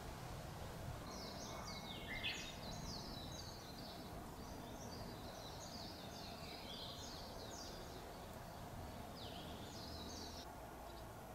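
A small songbird singing a fast twittering run of high chirps, pausing about a second and a half before a shorter run near the end, over a steady low background hum.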